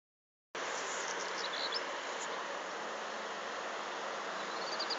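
Steady outdoor hiss of a summer field, with small birds chirping: a few high calls about a second in and a quick run of rising chirps near the end.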